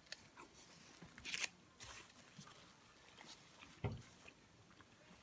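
Quiet close-up eating sounds: biting and chewing a breakfast burrito, with a few short crunches and a soft thump about four seconds in.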